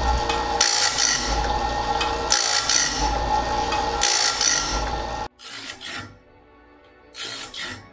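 Wood-Mizer BMS25 band-saw blade sharpener running, its grinding wheel rasping against the blade in a loud stroke about every one and a half seconds as it grinds tooth after tooth. It cuts off suddenly about five seconds in, and background music follows.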